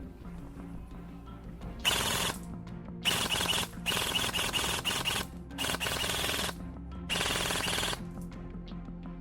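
Airsoft automatic rifle firing five bursts of rapid full-auto fire, each lasting from about half a second to a second and a half, over background music.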